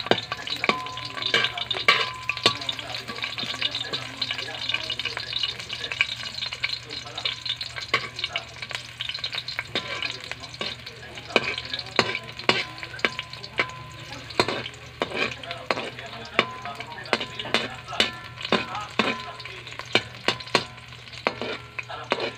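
Sliced garlic and onion sizzling in hot oil in a wok, with a metal spatula clinking and scraping against the pan at irregular intervals as they are stirred.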